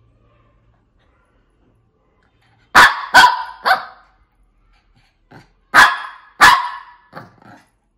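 Shih Tzu barking: three quick barks about three seconds in, then after a short gap a faint bark, two loud barks and two weaker ones.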